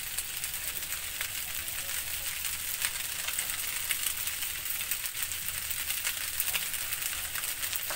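Shrimp-and-egg fried rice sizzling in a hot metal wok: a steady hiss with scattered small crackles.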